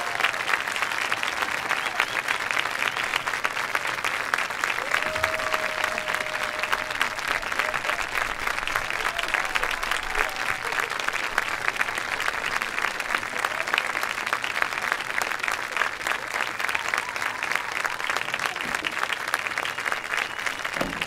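Audience applauding steadily at the end of a marching band performance, with a few brief cheers over the clapping.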